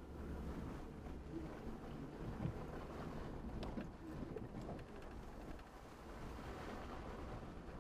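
Truck driving over a rutted, muddy dirt trail, heard from inside the cab: a steady low engine and tyre rumble, with a few knocks and rattles from bumps in the middle.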